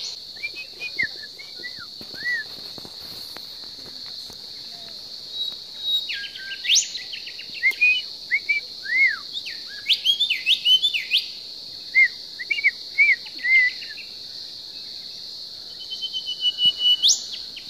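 Forest birds calling: clusters of short arching chirps and a few quick, sharply rising whistles, over a steady high-pitched insect drone.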